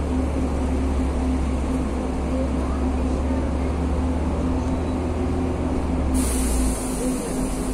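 City bus cabin noise: the diesel engine runs with a steady low drone and a constant hum while the bus creeps forward in traffic. About six seconds in, a high steady hiss sets in and the low drone eases a little.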